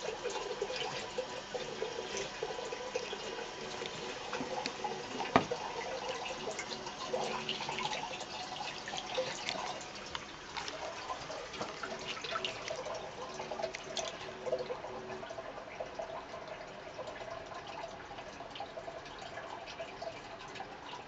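Thin stream of water running from a faucet into a washbasin, splattering and dripping irregularly as a cat paws at the stream. A single sharp tap about five seconds in.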